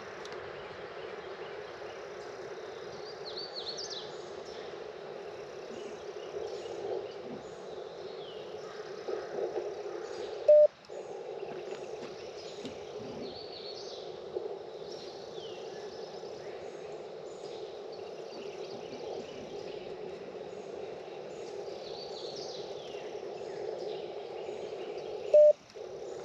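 Icom IC-705 transceiver hissing steadily with 40-metre band noise through a narrow filter, while the loading coil of a short vertical antenna is tuned up for resonance. Twice a short, loud beep breaks in, and the hiss drops out for a moment right after each. Birds chirp faintly behind it.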